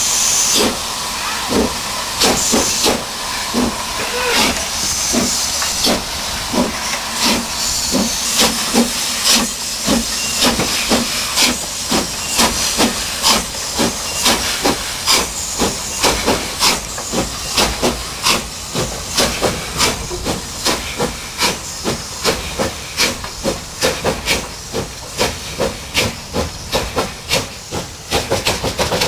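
Narrow-gauge steam locomotive working, its exhaust beating in an even rhythm of about two beats a second that quickens slightly later on, with a steady hiss of escaping steam during the first few seconds.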